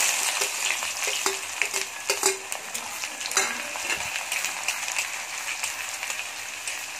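Sliced onions and dried red chillies sizzling in hot mustard oil in a kadhai. The sizzle is strongest right as they go in, then settles to a steady fry, with the spatula scraping and tapping against the pan as it stirs.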